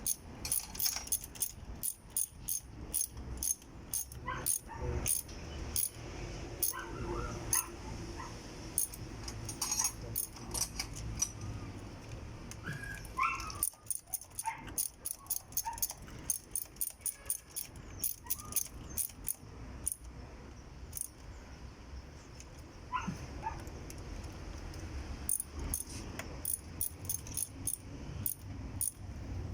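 Metal hand tools clicking and clinking against the engine in runs of quick clicks, with a few short, high rising squeaks.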